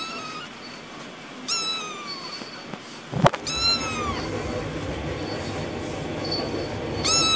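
Kitten meowing: four short, high-pitched mews, each falling in pitch, with a sharp knock about three seconds in.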